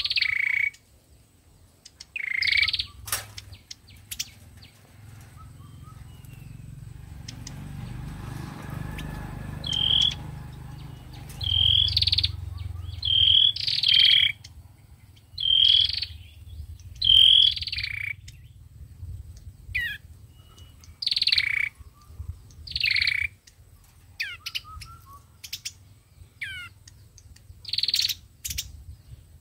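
Small songbirds giving a string of short, sharp chirping calls at irregular intervals, some dropping in pitch, with a faint low rumble in the middle.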